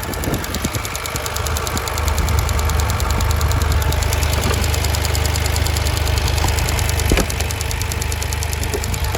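2023 Toyota GR Corolla's turbocharged 1.6-litre three-cylinder engine idling, with a rapid, even ticking from the engine bay whose source the owner cannot find. A single sharp click about seven seconds in.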